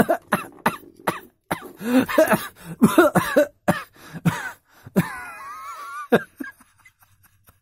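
A man laughing in short, cough-like bursts, dying away about six seconds in.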